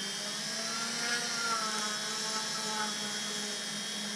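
Dremel rotary tool running steadily with a whine, its bit mixing Gorilla Glue in a small paper cup; the tone wavers slightly as the bit works through the glue.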